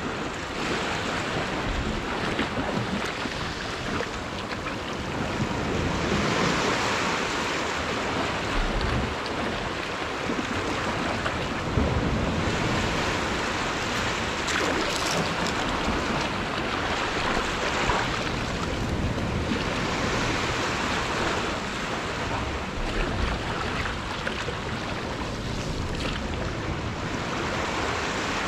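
Sea waves washing onto the shore, the hiss swelling and falling back about every six seconds.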